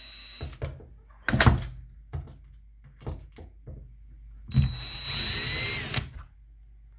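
Power drill running in short bursts, a brief one at the start and a longer, louder whirring burst about two-thirds of the way in, backing out the screws that hold the door handle, with a few knocks and clicks of the handle hardware in between.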